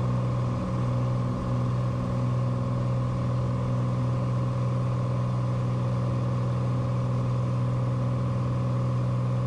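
Cessna Turbo 182 Skylane's turbocharged six-cylinder Lycoming engine and propeller at climb power just after takeoff, a steady, even drone heard inside the cockpit.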